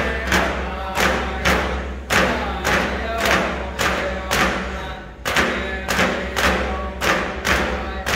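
Eskimo frame drums, thin skin drums on round hoops, struck together in a steady beat about twice a second, with a group of voices singing along.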